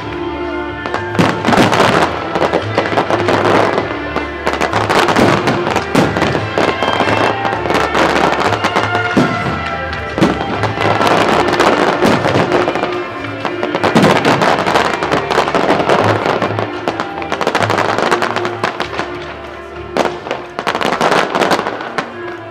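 Fireworks going off in quick succession, with sharp bangs and crackling, over loud music.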